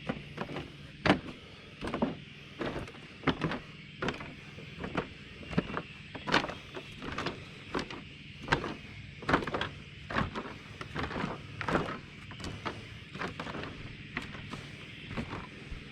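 Bicycle being ridden: a steady rolling noise of the tyres with a low hum, and sharp knocks or clicks repeating irregularly about every half second to a second.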